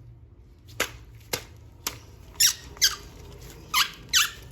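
Three sharp clicks, then four short squeaks that each slide quickly down in pitch.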